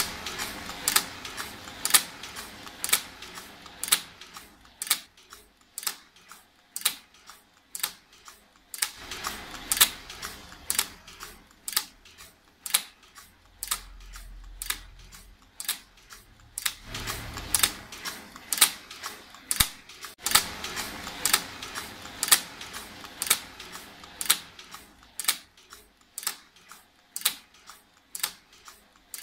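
A gear-and-lever machine mechanism running, making sharp mechanical clacks in a steady rhythm of about two a second.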